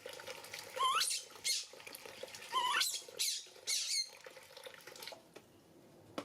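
Baby monkey squeaking: two high calls rising sharply in pitch about a second and a half apart, with several shorter squeaks in the first four seconds, then quieter.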